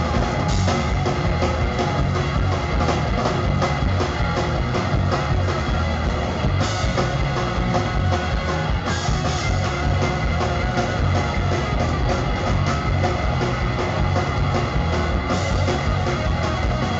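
Live rock band playing loud and continuously: electric guitars and bass over a steady drum beat, heard from within the audience.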